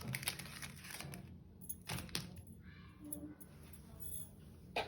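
Crinkling and crackling of chocolate bar wrappers being handled and opened: a dense run of crackles in the first second or so, a few sharp ones about two seconds in, then lighter rustling.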